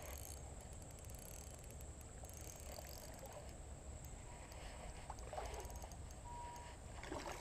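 Faint sloshing and swishing of shallow creek water as a person wades in.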